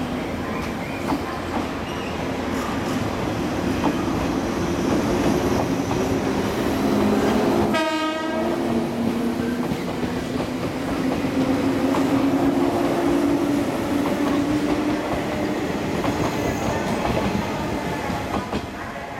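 JR 485-series electric multiple unit pulling out and running past, with a steady low hum of its running gear. It grows louder through the middle and fades away near the end.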